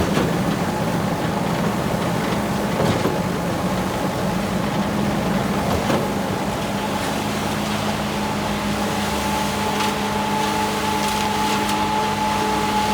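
Concrete pump and mixer running: a steady engine drone with a sharp knock about every three seconds as the pump strokes. A steady high whine comes in about two-thirds of the way through.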